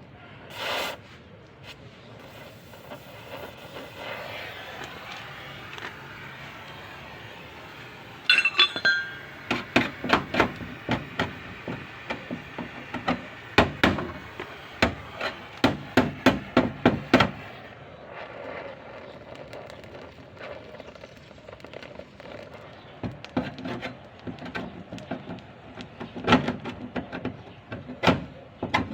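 A hammer knocking on metal, a rust repair in progress. A short metallic clink rings out just before a quick run of repeated blows, about two to three a second, that lasts several seconds. A few scattered blows follow near the end.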